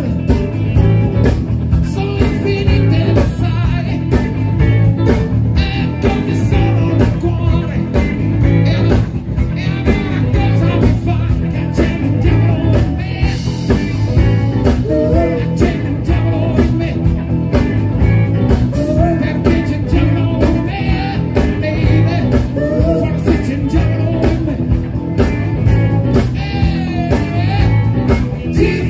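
Music: a song with singing and guitar over a steady beat.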